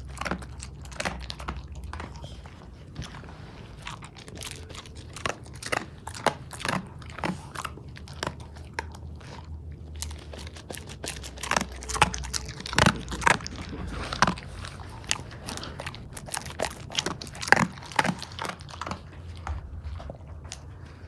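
A dog chewing, with irregular sharp crunches about once or twice a second, densest around the middle, over a low steady hum.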